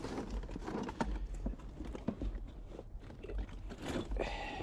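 Tools and gear in a car trunk knocking and clattering as hands rummage through them for a cordless ratchet, a string of irregular clicks and knocks.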